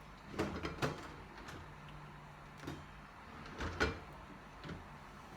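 A few light knocks and clacks from kitchen items being handled and set down: a quick cluster about half a second in, then single knocks spaced about a second apart.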